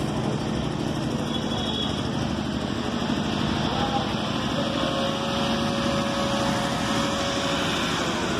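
Busy bus-stand din: a steady hum of vehicle engines mixed with background voices.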